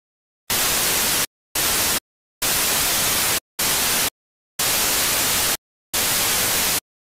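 Television static: six bursts of hiss, each half a second to a second long, separated by dead silence.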